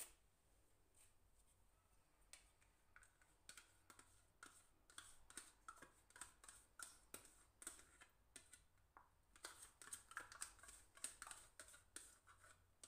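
Faint, irregular small clicks and scrapes as chocolate dessert is emptied from a plastic pot into a glass mixing bowl, over near silence.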